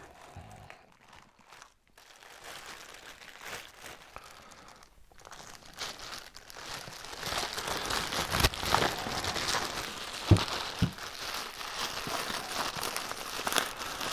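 Plastic bag wrapped around a small subwoofer crinkling and rustling as hands pick at it. It stays faint for the first few seconds, then grows denser and louder, with a few sharp crackles.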